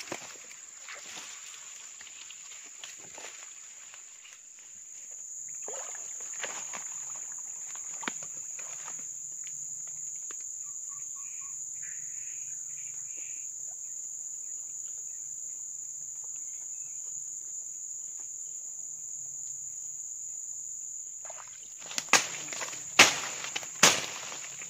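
Steady high-pitched drone of insects in swamp forest. Footsteps rustle through leaf litter and undergrowth in the first several seconds, and several loud, sharp cracks near the end are the loudest sounds.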